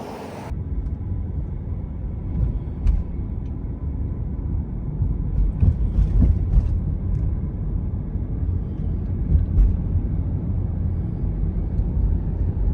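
Wind buffeting the microphone, a loud, steady low rumble that starts suddenly about half a second in.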